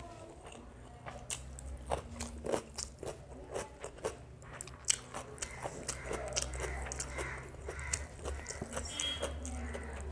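Close-miked chewing of a mouthful of chicken biryani, with many sharp wet smacks and clicks of mouth and lips, over a low steady hum.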